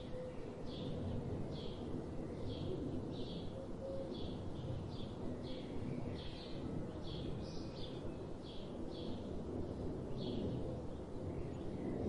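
Short high chirps repeating steadily about every half second to second, over a constant low rumble of outdoor background noise.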